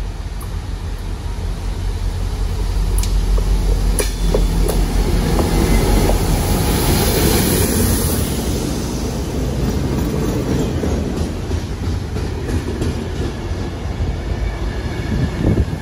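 An MBTA power wash train passes close by, led by a non-rebuilt EMD F40PH diesel locomotive, whose two-stroke V16 engine drones under the rumble of wheels on rail. The sound builds to its loudest about six seconds in as the locomotive goes by, with a few sharp wheel clicks early on. The tank and generator cars follow with a steady rolling rumble, and a second locomotive passes at the rear near the end.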